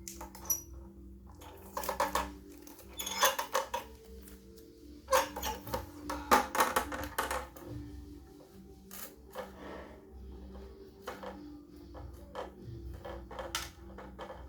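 Quiet background music, with clicks and clatter of objects being handled during an LED lamp unboxing. The clatter is loudest in clusters about two seconds in, three to four seconds in, and five to seven seconds in.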